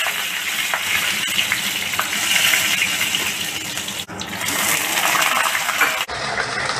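Cumin seeds and whole spices sizzling in hot oil in a kadai: a steady hiss with small crackling pops. The sizzle breaks for an instant about four seconds in and turns duller near the end, once ginger and garlic pieces are in the oil.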